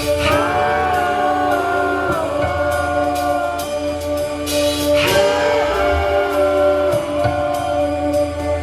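A live band playing a song: a singer's two held, wavering phrases, the first about two and a half seconds long and the second starting about five seconds in, over guitar, bass and drums.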